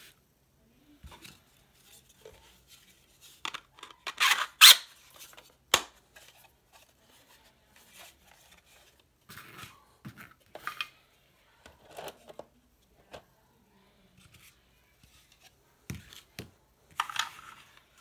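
3D-printed plastic parts being handled and fitted together on a tabletop: irregular clacks, scrapes and sliding of plastic on plastic. The loudest clatter comes about four to six seconds in, with another near the end.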